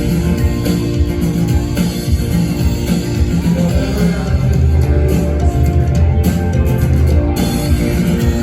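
Rock band playing a song live, with guitar prominent in a loud, dense full-band mix.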